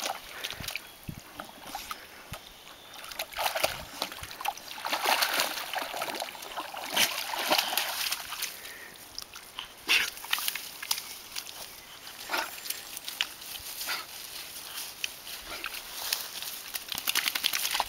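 Appenzeller Sennenhund wading and swimming through a shallow pond, the water splashing and sloshing around it in irregular bursts.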